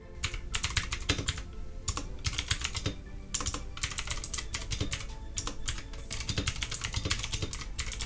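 Fast typing on a Redragon K552 tenkeyless mechanical keyboard fitted with HyperX Pudding double-shot PBT keycaps: a dense run of key clicks, with two short pauses about two and three seconds in.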